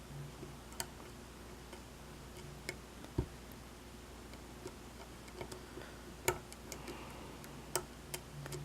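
Faint, irregular metallic clicks and ticks of a diamond lock pick and tension wrench working the pins of a pin-tumbler lock, including probing a serrated pin.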